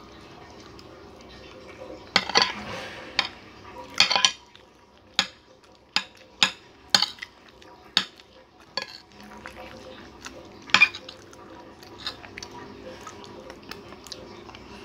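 Metal spoon and fork clinking and scraping against a plate as food is scooped up: a run of sharp clinks, thickest about two and four seconds in, then single clinks roughly every half second to second until about eleven seconds in, with fainter taps after.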